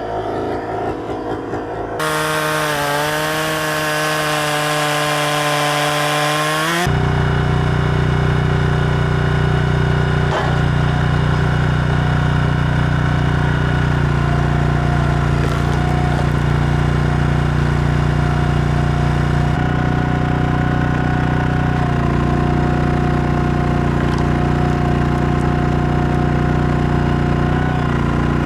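Gas chainsaw running at high throttle while cutting firewood, a steady high drone; in the first few seconds its pitch dips and climbs back up.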